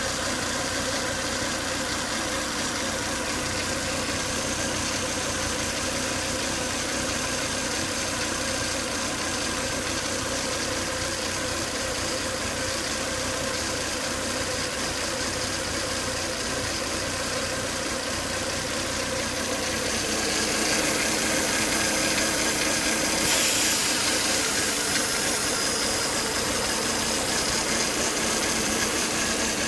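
Volvo S80 2.5T's turbocharged inline-five engine running steadily with a whine, growing louder about twenty seconds in. The noise comes from excessive crankcase vacuum, a fault that was cured by replacing the breather box.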